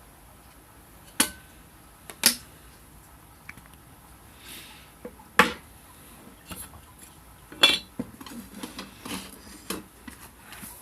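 Metal parts of a homemade wood stove clinking and knocking together as they are handled and fitted: four sharp clinks spaced one to three seconds apart, then a run of lighter taps and rattles near the end.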